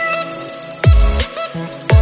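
Electronic backing music: deep bass hits that fall in pitch, about one a second, with fast hi-hat-like ticks between them.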